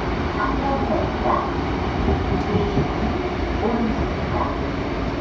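Seoul Metro 7000 series subway train running along the track, a steady low rumble of wheels and running gear heard from on board.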